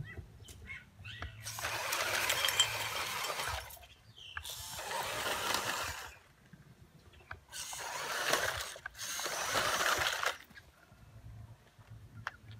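Small electric RC crawler truck driving in four bursts of a few seconds each, its motor and gears whirring under load as it drags a glass bottle through dirt and dry leaves.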